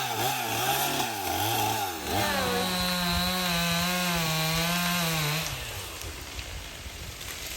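Chainsaw revving up and down in quick pulses about twice a second, then held at a steady high speed for about three seconds before winding down and dropping away.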